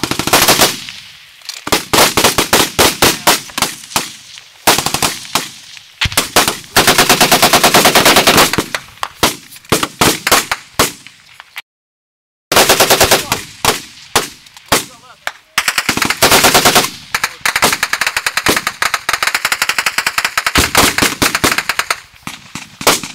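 Close automatic gunfire in long, rapid bursts of many shots a second, repeating through the firefight, with sharp cracks that are incoming rounds from a PKM machine gun. The sound cuts out completely for under a second a little before the middle.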